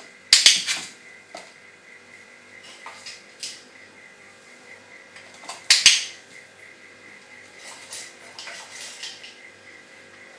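Chihuahua puppy's paws and claws clattering on the small bowl he stands on as a pivot perch. Two loud, sharp clatters come just after the start and about halfway through, with lighter taps and scrapes between them.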